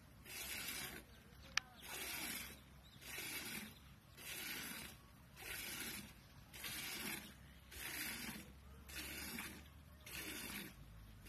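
Hand-milking into a galvanized metal bucket: milk streams hissing into the pail in a steady rhythm of about one squirt a second. One sharp click about one and a half seconds in.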